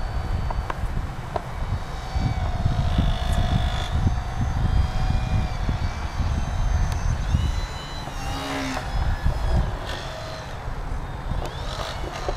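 Electric motor and propeller of a foam RC biplane whining overhead, its pitch falling and rising as the throttle changes. A low, gusting rumble of wind on the microphone runs under it.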